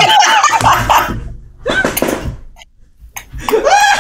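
A young man laughing hard in bursts, with a short lull a little past halfway before the laughter picks up again.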